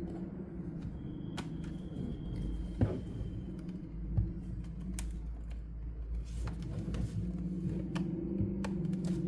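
Small scattered clicks and taps of tools and parts being handled while a laptop is taken apart, with two louder knocks about three and four seconds in, over a steady low hum.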